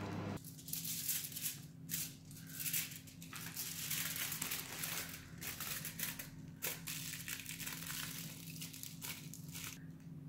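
Aluminium foil crinkling and crackling in irregular bursts as gloved hands fold it into a small packet.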